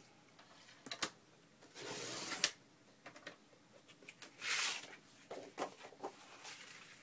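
Paper being shifted, lined up and cut for journal signatures: a couple of sharp clicks about a second in, a swishing rasp of the cut about two seconds in and another around four and a half seconds in, with light paper rustles between.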